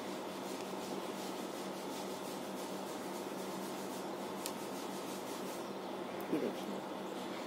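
Hair rubbing and rustling as a Remington flat iron is drawn down a section of long hair and fingers comb through it, over a steady low hum. A sharp click about four and a half seconds in, and a short low bump about six seconds in.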